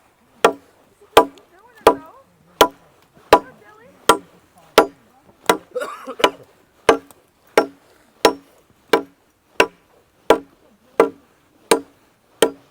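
Steady, evenly spaced chopping blows into wood, about eighteen sharp knocks at roughly one every 0.7 seconds.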